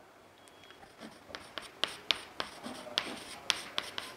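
Chalk writing on a chalkboard: a run of sharp taps and short scratches as characters are written, starting about a second in.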